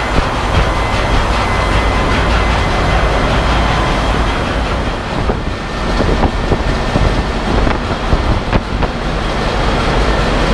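Ship's engine-room din from the running B&W two-stroke main diesel engine, turning at about 51 RPM, and the machinery around it: a loud, constant deep rumble with a busy mechanical clatter. Several sharper clicks stand out in the second half.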